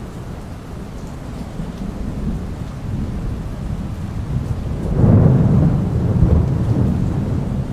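Thunder rumbling in a rainstorm, swelling louder about five seconds in, over the steady hiss of rain.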